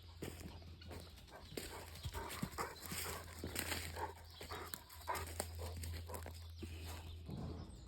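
Dogs moving about close by: irregular scuffs and clicks with a few brief yips or whines, over a steady low hum.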